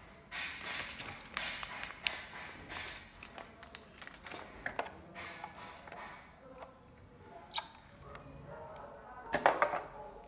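Clear plastic packaging, a resealable bag of screws and fittings and a clamshell, rustling and crinkling as it is handled, with scattered light clicks and taps. There is a louder crinkle about nine and a half seconds in.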